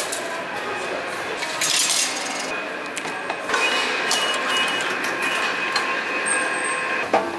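Metro train running, a steady noise with a high, steady whine that sets in about halfway through.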